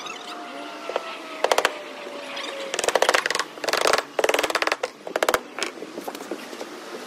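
Rooftop shingle-laying work: several short bursts of rapid, evenly spaced sharp clicks, the first about a second and a half in and the rest between about three and five and a half seconds in.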